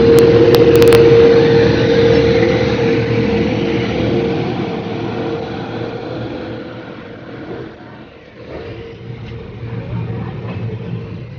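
Moving passenger train heard from an open coach doorway as it runs past an electric locomotive on the next track: a loud rumble with a steady humming tone, loudest in the first few seconds while the locomotive is alongside. It then fades to the train's quieter running noise.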